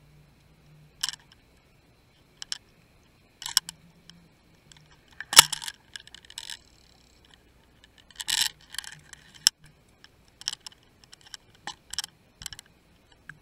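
Underwater fishing camera rig knocking and rattling as it is dragged over the sandy bottom: irregular sharp clicks and knocks, the loudest about five seconds in and a quick cluster about eight seconds in, over a faint steady whine.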